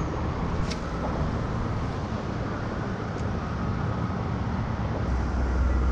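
Steady road traffic noise from a highway bridge close by, with a deeper rumble that strengthens about five seconds in.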